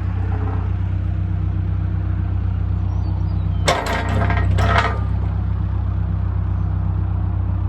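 Diesel engine of a 2008 New Holland B95B loader backhoe running steadily, with a loud burst of noise a little under four seconds in that lasts about a second.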